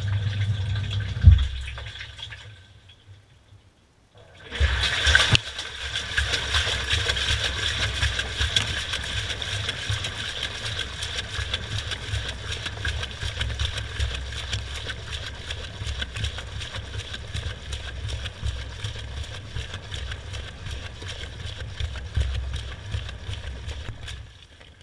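Washing machine drum turning with water and soapy washcloths sloshing inside, heard from inside the drum, with a steady motor hum and knocks. The drum stops for about two seconds, starts turning again with a knock, and stops again near the end, as a wash cycle runs in spells.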